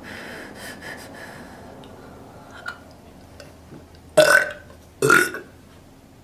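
A woman burping: two short, loud belches about four seconds in, the second a second after the first.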